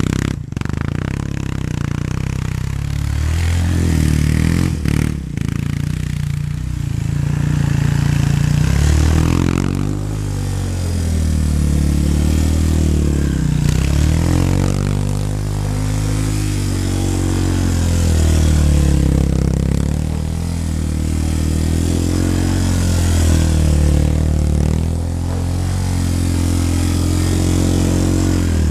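A 2008 Yamaha Raptor 350 quad's single-cylinder four-stroke engine revving up and down over and over, its pitch rising and falling every couple of seconds as it is ridden in tight turns on snow. There are a couple of sharp knocks, one near the start and one about five seconds in.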